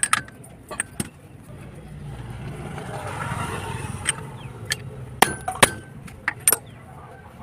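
Sharp metal clinks and knocks of a socket and sliding T-bar on a wheel hub nut as a freshly refitted hub bearing is being tightened. A low rumble swells and fades in the middle.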